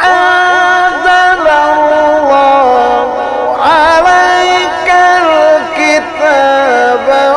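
Egyptian Quran reciter's voice in mujawwad recitation, drawing out one long ornamented melismatic phrase. The held notes waver and slide between pitches, and a fresh phrase begins about three and a half seconds in.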